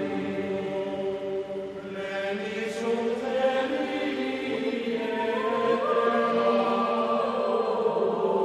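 Devotional chant music: voices holding long sung notes over a steady drone, the melody climbing a little about halfway through.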